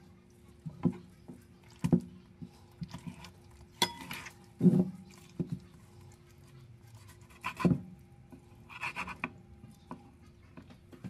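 Chef's knife cutting raw chicken breast on a wooden cutting board: irregular knocks of the blade striking the board, with lighter clicks and handling of the meat between them. A faint steady hum runs underneath.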